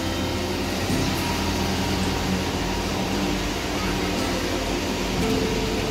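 Steady low mechanical hum from a docked Kochi Water Metro passenger ferry's machinery, with a faint steady tone joining near the end.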